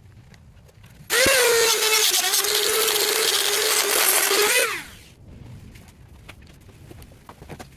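Handheld rotary tool with a small burr bit cutting through a lithium battery busbar. It spins up about a second in, runs with a steady high whine for about three and a half seconds, then winds down with falling pitch.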